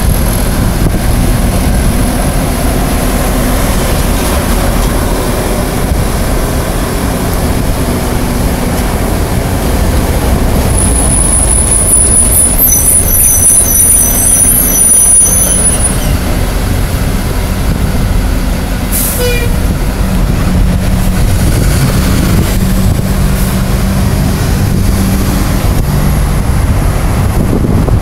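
Bobcat skid-steer loader's diesel engine running steadily as it works dirt, over a steady low rumble of traffic; a high-pitched squeal sounds for a few seconds in the middle.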